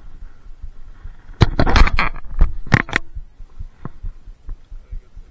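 Channel catfish thrashing in a mesh landing net as it is grabbed by hand: a loud scuffling burst about a second and a half in, then a few sharp knocks, over faint low thudding.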